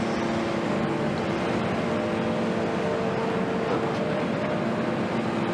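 Steady hum of motor traffic with a constant low engine drone under it, even throughout with no sudden events.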